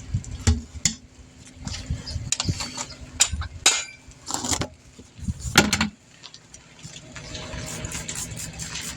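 Metal tools clinking and knocking in a run of sharp strikes during wheel removal. Under it, a vehicle engine runs steadily and grows louder in the last few seconds.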